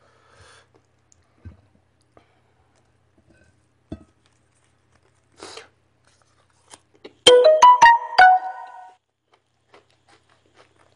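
A short electronic piano-like jingle of several quick stepping notes, about seven seconds in. Around it, only faint small clicks and mouth sounds from eating.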